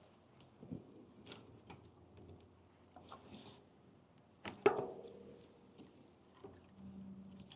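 Light clicks and knocks of tools and bicycle parts being handled, with one sharp metallic clank about four and a half seconds in that rings briefly.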